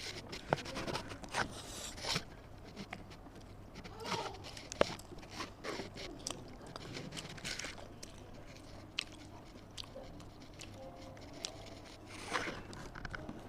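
Close-miked chewing and biting of a Ramly beef burger, with many small sharp clicks and crunches from the mouth.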